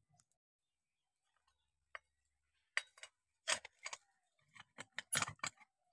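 A metal tool clinking and knocking against burnt motor armatures and embers in a clay stove: a string of sharp, irregular clicks and taps starting about two seconds in, coming thicker toward the end.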